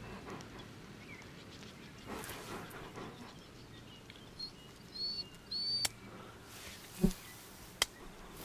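Outdoor grass-field ambience with a few short high bird chirps about halfway through and soft rustling of movement in the grass. A dull thump and then a sharp click near the end are the loudest sounds.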